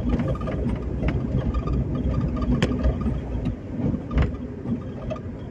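Open-top convertible car driving along: steady road and engine noise mixed with low wind rumble on the microphone.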